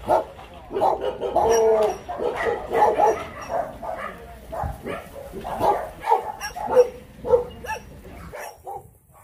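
Shelter dogs barking over and over in short, irregular yelps, with a longer drawn-out cry about a second in.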